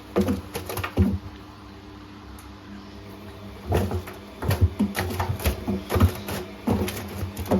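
Bosch WAE28462GB washing machine running with its door open, its motor giving a steady low hum while the load of shoes and towels knocks and clunks irregularly in the turning drum. The knocks come in a cluster at the start, pause, then return several times a second in the second half.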